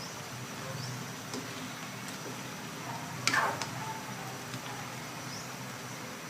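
Pork menudo simmering in a wok with a steady hiss, a few light clicks, and one sharp clank of a metal utensil against the pan a little past the middle.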